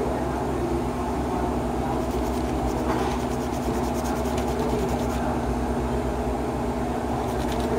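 Steady low hum and rumble of a running machine, with a few faint clicks from small parts being handled about halfway through.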